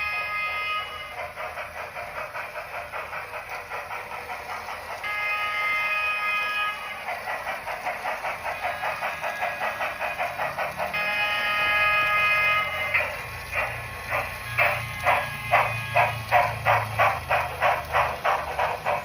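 Steam sound effects from a model Union Pacific Big Boy locomotive: a fast, even rhythm of exhaust chuffs with three long multi-tone whistle blasts. In the last few seconds the chuffs turn louder and slower, about two a second.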